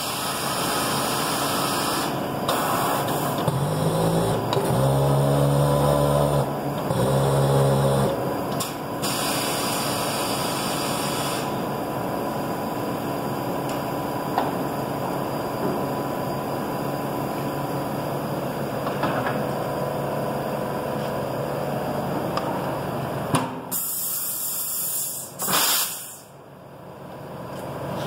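Coates 7050AX rim clamp tire changer being worked: its turntable motor runs in two short spells about four seconds in, over a steady shop hum. Near the end there is a burst of air hiss.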